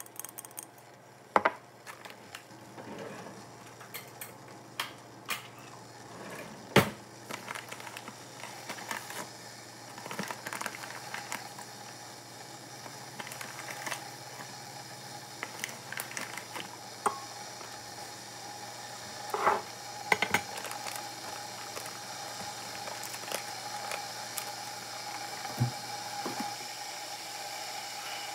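Scattered clicks, knocks and light clinks of objects being handled, over a faint steady hum.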